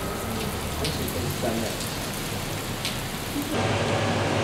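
Steady rain falling on wet pavement, with a few sharper drips. About three and a half seconds in it cuts to a steady, slightly louder hiss.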